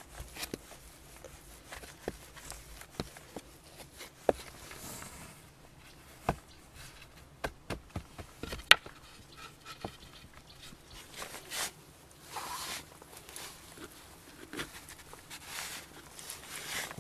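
Hands working wet clay mud and handling a flat slab against a log wall: scattered soft knocks and sharp clicks, with a few short brushing, scraping swishes about two-thirds of the way through.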